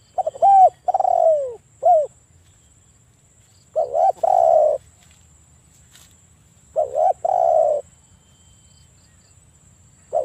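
Spotted dove cooing in repeated phrases. The first is three notes, the middle one sliding down. Two more phrases follow, each a short note or two and a longer coo, about three seconds apart, and a fourth starts right at the end.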